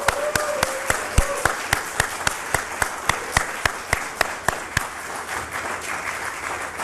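Audience applauding, with a few loud individual claps standing out at about three or four a second over the general clapping.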